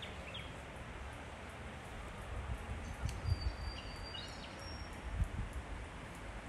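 Outdoor ambience: a steady rushing hiss with low gusty thumps, and short high bird chirps near the start, then a thin, high whistled bird call around the middle.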